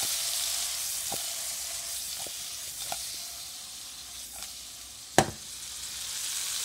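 Halved cherry tomatoes with garlic and herbs sizzling in hot oil in a frying pan, a steady hiss that dies down midway and picks up again near the end. A few light clicks, and one sharp knock a little past halfway.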